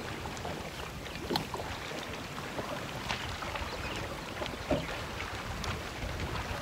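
Low wind rumble on the microphone and water against a boat, with a few light clicks and taps as a caught largemouth bass is handled.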